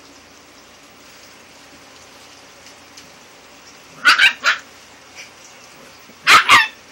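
Jack Russell terrier puppy yapping: short high-pitched barks, three in quick succession about four seconds in and two more near the end.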